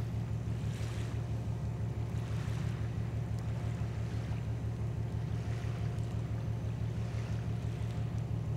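A boat's diesel engine running with a steady, evenly pulsing low drone, under faint wind and water hiss.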